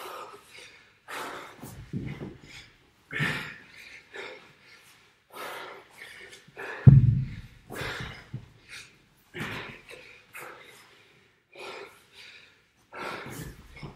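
A man breathing hard from exertion, with sharp gasps and exhales about once a second. About halfway through there is one heavy low thud, the loudest sound.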